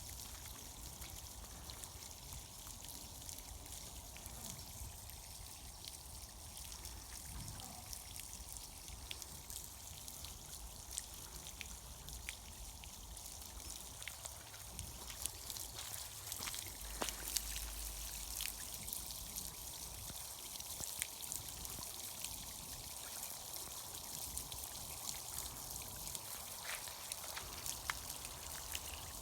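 Spring water pouring and trickling steadily, dotted with many small splashes.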